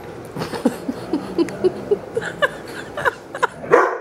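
Dogs play-wrestling: a quick string of short, squeaky yips that slide up and down in pitch, then a loud bark near the end from the German Shorthaired Pointer.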